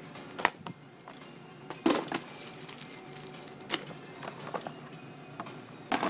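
Several sharp knocks and clatters of notebooks and folders being handled and set down in a wire shopping cart, over faint background music.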